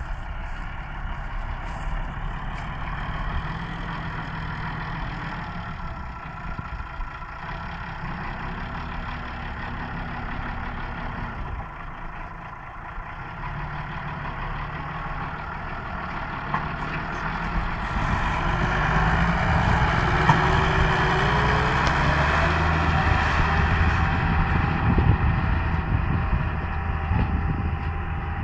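Massey Ferguson 3085 tractor's diesel engine running steadily under load as it pulls a 3.2 m field cultivator through the soil, getting louder in the second half.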